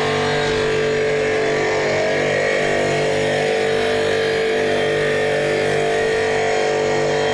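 Stone-cutting saw machine running with a steady, unchanging whine.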